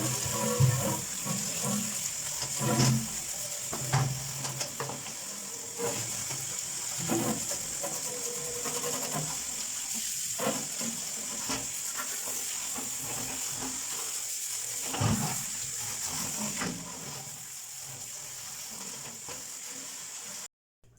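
Water running and splashing as the drum of a barrel vacuum cleaner is scrubbed and rinsed, with occasional knocks against the drum. The sound cuts off abruptly near the end.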